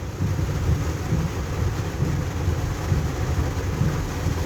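Heavy rain falling on a car's roof and windshield, heard from inside the cabin over a steady low rumble from the slowly moving car.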